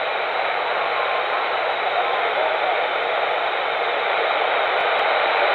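CRT SS 9900 10-metre radio's speaker giving a steady hiss of band noise on upper sideband, with a very weak distant station faintly heard under it. The band is closed, with almost nothing coming through.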